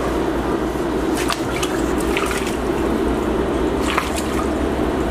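Broth in a large steel cooking pot of donkey meat, splashing and dripping as the meat is moved, with a rack of donkey ribs lifted out of the broth dripping near the end. A steady low hum runs underneath.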